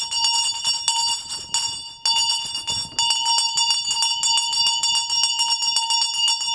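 Brass puja hand bell (ghanti) rung continuously, its clapper striking rapidly over a sustained ringing tone, with brief breaks about one and a half and two seconds in. It is rung after the aarti in a Hindu puja.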